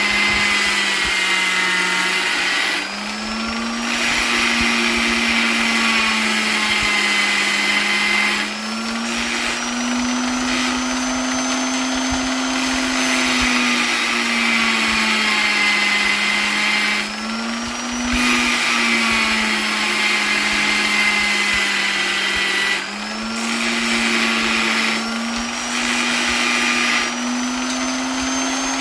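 Electric polisher running continuously, its motor hum and whine drifting slowly up and down in pitch. Several times the sound briefly dips and the motor speed sags before it picks up again.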